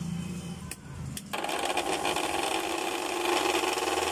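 Ameet mixer grinder's motor switched on about a second in and running with no jar fitted, with a loud, harsh mechanical noise. This is the excessive running noise of a faulty mixer that the repair sets out to cure.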